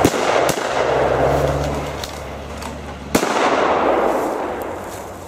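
Staged pyrotechnic explosions: a sharp blast at the start, another about half a second later and a third about three seconds in, each rolling away over a couple of seconds.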